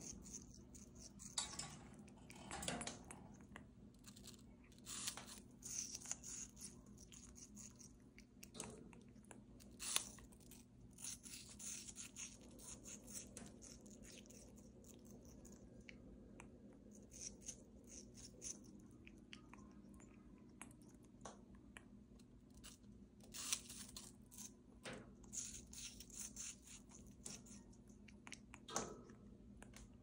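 African grey parrot biting into and crunching a slice of crisp apple held in its foot: irregular short crunches in little clusters, with pauses between bites.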